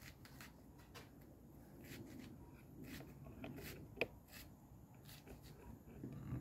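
Kitchen knife scoring and slicing a red onion held in the hand: faint, irregular crisp cuts and scrapes, with one sharper click about four seconds in.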